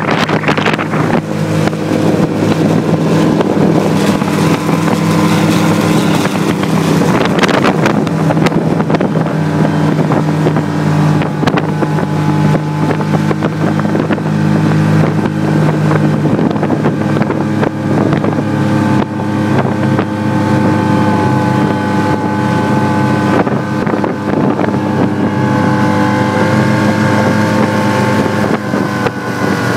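Snowmobile engine running steadily under load as the machine climbs a snowy slope.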